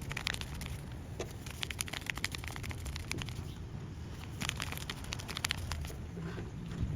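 Paper squishy toy stuffed with a plastic bag being squeezed and handled, giving irregular crinkling and crackling.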